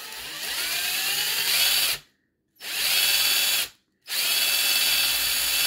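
Cordless drill spinning a Fantom FR18 nitro engine crankshaft chucked in its jaws, with a sanding sponge pressed against the crank to polish off oxidation. The drill's whine rises as it speeds up, and it runs in three spells broken by two short gaps, about two seconds in and about four seconds in.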